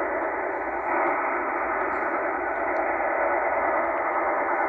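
STANAG military data-modem signal received in upper sideband on a Tecsun H-501X shortwave receiver at 12,858 kHz: a steady, dense data hiss that does not break or change. The listener takes it for a French Navy station, possibly from Senegal.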